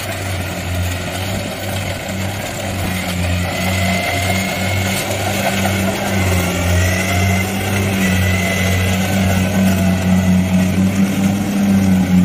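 Kubota rice combine harvester's diesel engine running steadily as the machine cuts rice, its low hum with a clatter of working machinery above it, growing a little louder as it comes closer.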